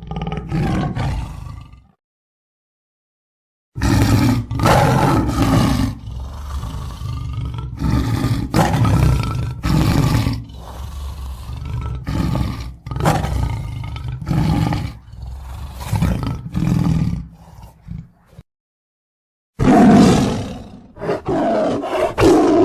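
Lion roaring: a run of loud, rough roars, about one a second through the middle, in three stretches broken by dead silence.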